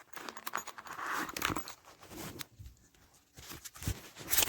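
Handling noise: rustling and scattered small clicks as objects are picked up and moved by hand, with a short pause in the middle and a sharper click near the end.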